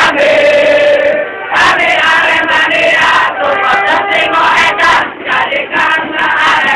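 Football supporters' crowd singing a chant together, many male voices in unison, with sharp beats cutting through the singing.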